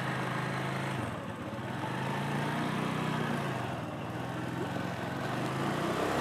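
Motorcycle engine running at low speed as the bike rolls slowly, its note dipping briefly about a second in, over a steady rushing noise.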